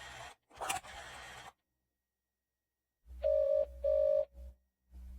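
Telephone ringing tone: a steady beep sounding in a pair of short rings, starting about three seconds in, after a second and a half of faint hiss with a click and then a moment of silence.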